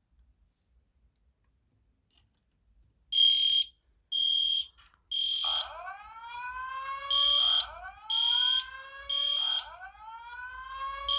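Fire alarm notification appliances sounding together: from about three seconds in, a horn gives short blasts in groups of three (the code-3 temporal evacuation pattern). From about five seconds in, a rising whoop tone repeating about every two seconds joins it, the lead-in tone of a Simplex TrueAlert speaker's evacuation message.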